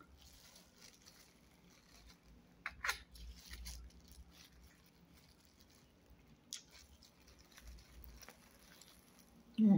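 Quiet eating sounds: a few light clicks and rustles as food is picked up by a plastic-gloved hand and chewed. A short vocal sound comes near the end.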